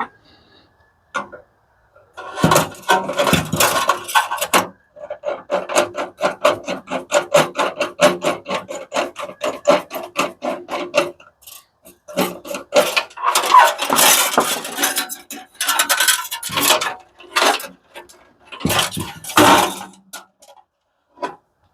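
Tools working on the metal parts of an industrial coffee machine being dismantled: spells of sharp clicks and scrapes, including a long run of rapid, evenly spaced clicks about five seconds in.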